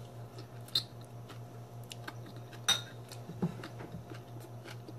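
A few light clinks of a metal fork and a clear glass salad bowl being handled, the loudest a little under three seconds in, over a steady low hum.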